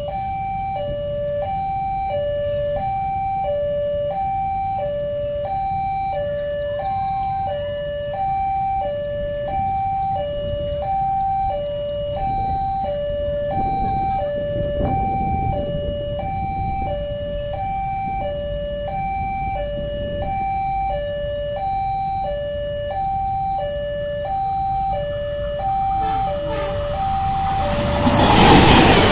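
Railway level-crossing warning alarm sounding its steady electronic two-tone signal, high and low notes alternating about once a second, over a low rumble: the crossing is closed for an approaching train. Near the end a KAI CC203 diesel-electric locomotive reaches the crossing and its loud rumble swamps the alarm.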